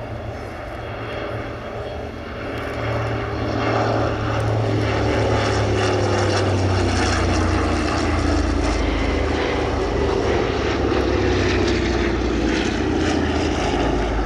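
Piston-engined World War II warbird flying past with a propeller drone. The drone grows louder about four seconds in, and its pitch falls slowly as the aircraft goes by.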